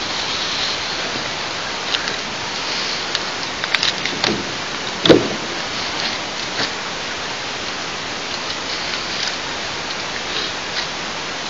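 Steady, even outdoor hiss picked up by a nest camera's microphone, with scattered faint high ticks and one sharp knock about five seconds in.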